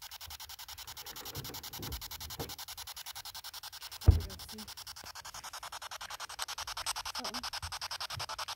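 Ghost-hunting spirit box sweeping through radio stations, giving a rhythmic chopped static at about ten pulses a second. A single dull thump about four seconds in.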